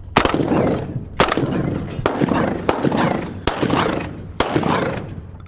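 Rapid shotgun fire from two hunters: about six shots in five seconds, unevenly spaced, each with a trailing echo.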